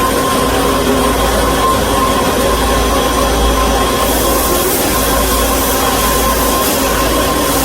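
KOTEC Diamond-1000T high-speed band saw machine running steadily, a continuous mechanical whine over a low rumble. A brighter hiss joins in from about halfway through.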